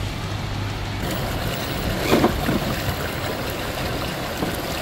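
Creek water rushing steadily around an RC crawler truck driving through the stream, with one brief louder splash about two seconds in.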